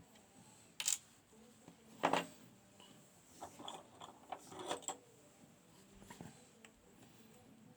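Small metal clicks and rattles from handling a Gege pExtra lock cylinder and tools, with a louder clack about two seconds in and a run of light clicks a little later.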